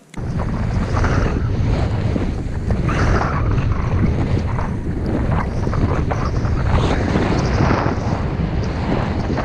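Wind buffeting the camera microphone of a snowboarder riding downhill, a heavy low rumble, with the hiss of the board sliding through snow rising and falling as it turns.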